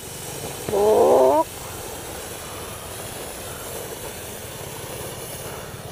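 A handheld pencil firework burns with a steady hiss as it sprays sparks. A short warbling voice cuts in about a second in.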